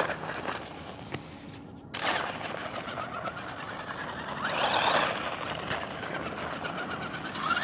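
Electric RC monster truck driving off over snowy pavement on screw-studded tyres: its motor whine and tyre noise start suddenly about two seconds in, rise and fall in pitch, and are loudest around five seconds in.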